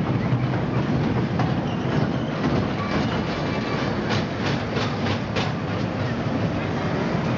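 Small kiddie roller coaster's cars rolling along a steel track with a steady rumbling rattle. A quick run of sharp clacks comes about four seconds in, as the cars pass close by.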